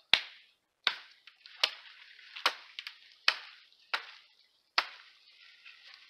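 A hatchet chopping wood: seven sharp blows, a little more than one a second, stopping about five seconds in.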